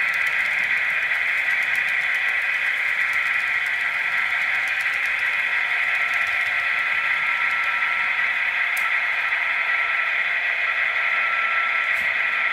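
H0-scale model freight trains running on the layout: a steady whirring hiss of the locomotive motors and wheels on the track, with a faint steady whine under it and a couple of light clicks near the end.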